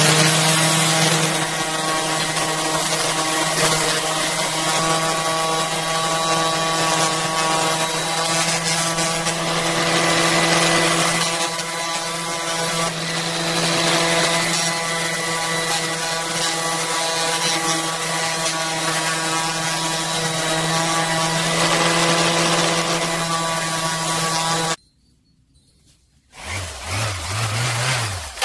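Hitachi SV12SD orbital pad sander running with a BMW fog light lens pressed against its coarse 100-grit sandpaper: a steady motor hum under a rough grinding rub. It cuts off about 25 seconds in, starts again a second and a half later, and stops and restarts once more near the end.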